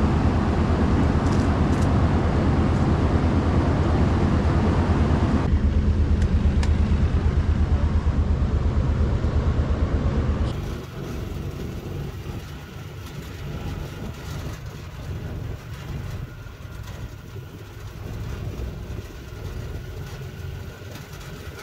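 A vehicle engine running loud and steady, with a low pulsing rumble. About ten seconds in it drops to a quieter steady rumble.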